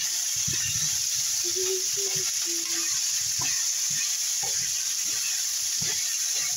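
Pork cubes sizzling steadily as they are sautéed in a wok with garlic and onion, browning toward golden. A wooden spatula stirs and scrapes through the meat now and then, adding short knocks and scrapes.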